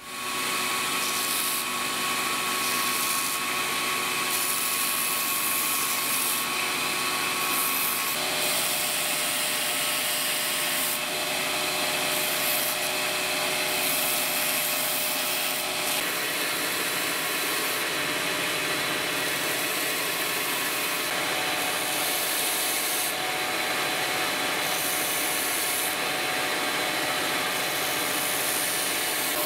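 Belt grinder running with a wooden knife handle pressed against the sanding belt: a steady hiss of abrasive grinding wood over the machine's steady whine, shifting a little in tone every few seconds.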